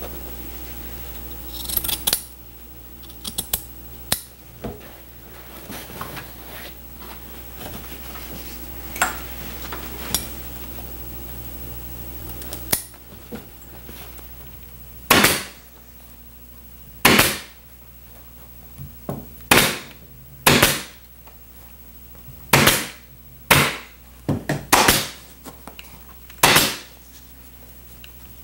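Bea pneumatic upholstery stapler firing staples through burlap into the chair's wooden frame: about ten sharp shots, one every second or two, in the second half. Before that, a few snips and clicks of upholstery shears cutting the burlap over a low hum that stops about halfway.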